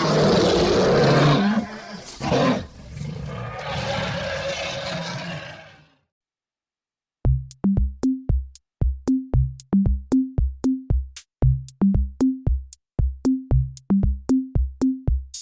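Lion roaring, a long, rough roar that fades out about six seconds in. After a second of silence, backing music starts with a steady quick beat of short plucked notes.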